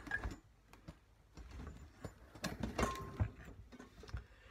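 Metal tools and a motorcycle fork leg being handled on a wooden workbench: scattered clicks and knocks, busiest in the second half, with a brief metallic ring about three seconds in.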